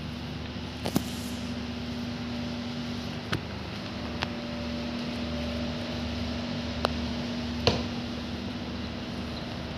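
Plastic head of a flat dry-cloth floor mop knocking about five times as it is pushed over floor tiles and around furniture legs, the loudest knock near the end, over a steady mechanical hum.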